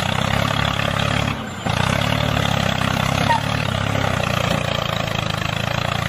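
Tractor engine running steadily with a low rumble, dipping briefly about a second and a half in.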